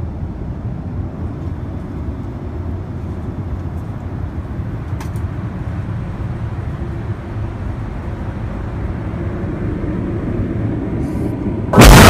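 Steady low rumble of an airliner cabin in flight. Near the end it is cut off by a sudden, very loud jump-scare blast.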